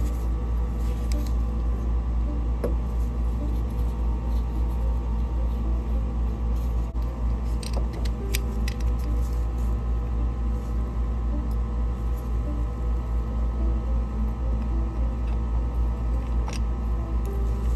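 A steady low mechanical drone with several held tones, like a running machine, with a few light clicks and taps from hands handling the hose, clamp and metal fittings.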